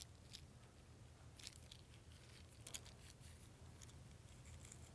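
Near silence with a few faint, scattered clicks and rustles of parachute cord being slid off a tube by hand, with lead balls inside the cord.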